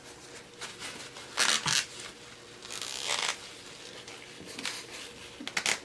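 A package being worked open by hand: bursts of crinkling and tearing about a second and a half in, around three seconds in, and again near the end.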